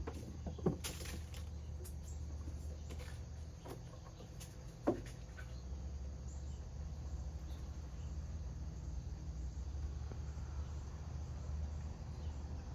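Outdoor ambience of a steady low rumble with faint insects chirping, broken by two brief knocks or taps, one just under a second in and one about five seconds in.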